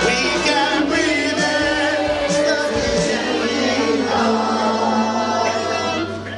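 A group of voices singing a song together over musical backing, with a low note held underneath.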